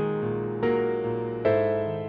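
Background music: slow, gentle piano, with chords struck about once every second and left to ring and fade.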